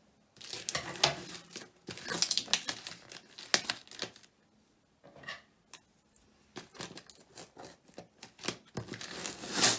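Packing tape being torn and pulled off a cardboard parcel, with crinkling of the packaging, in irregular bursts. A pause of about two seconds comes midway, and the loudest tear is near the end.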